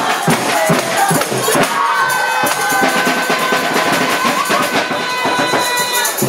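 Music with a busy drum-and-percussion beat, giving way about two seconds in to long held notes that stop shortly before the end.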